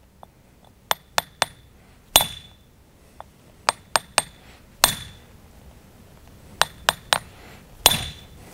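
Steel hammer striking a chisel set on a stone paving cube, each blow giving a sharp metallic ring. The blows come in a repeating pattern of about three lighter taps and then one harder strike, three times over. The stone is being split with steady, unforced blows, and it has not broken yet.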